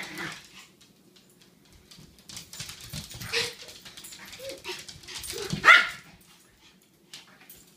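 Small dogs play-fighting, giving a few short barks and yips, the loudest and sharpest about three quarters of the way through.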